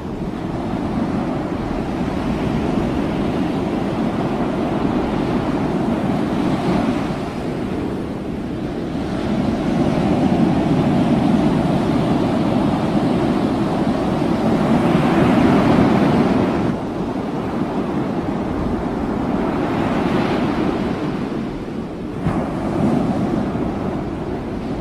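Wind buffeting the microphone over the wash of a rough sea, swelling and easing in gusts and loudest a little past the middle.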